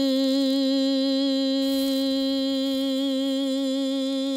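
A voice holding one long, steady note with a slight waver in pitch.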